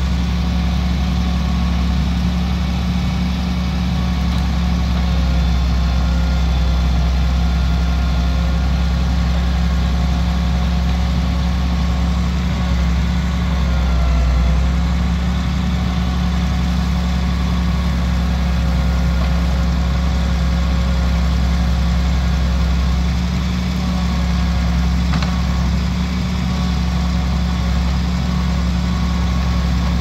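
Log truck's diesel engine running steadily while it drives the hydraulic knuckle-boom loader crane as the grapple swings and lifts logs; the engine note dips briefly about halfway through.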